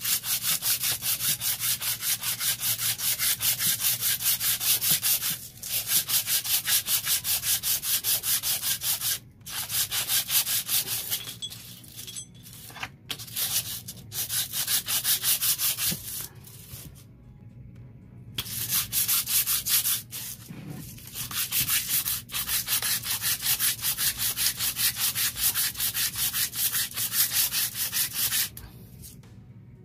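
A metal camshaft holder from a Honda RS150 DOHC head being rubbed back and forth on 120-grit sandpaper laid flat on tile, in runs of quick strokes broken by a few short pauses. It is being lapped down to close up nearly 1 mm of clearance on the camshaft, the play that lets the cam lift and makes the engine noisy.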